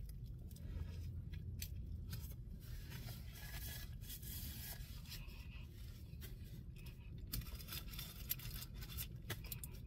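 Faint eating sounds: a cheeseburger being chewed, with soft rustling of its paper wrapper and a paper napkin wiped across the mouth a few seconds in. Scattered small clicks and a low steady hum run underneath.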